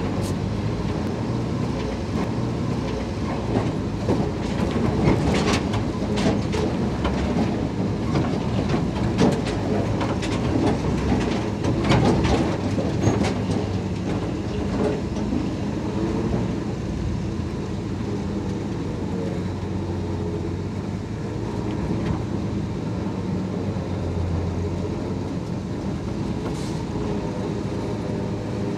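Dodge M37 truck's flathead inline-six engine running at low revs as the truck crawls over rocks, with the body and wrecker gear clanking and rattling. The knocks are thickest in the first half, after which the engine runs more steadily.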